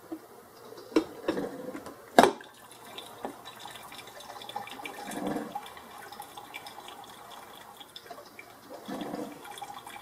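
Mr. Coffee 12-cup programmable drip coffee maker brewing plain water in its first cleaning cycle: the glass carafe knocks back onto the warming plate, loudest about two seconds in, then water drips and gurgles as the brew flows again.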